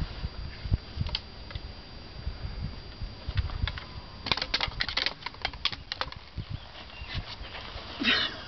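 Trekking pole tips clicking and clattering against granite rock, with a quick run of sharp clicks about four seconds in, over low thuds of boots and handling.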